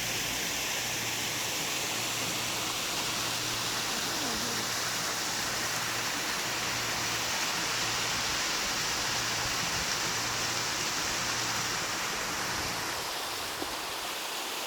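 Artificial waterfall: a steady rush of falling water.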